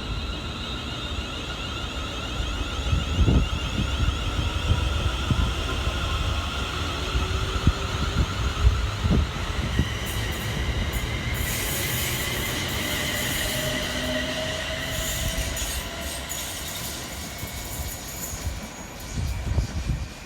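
A train running through the station, with a steady rumble, a few knocks, and high-pitched squeals from the wheels whose tones shift slowly in pitch.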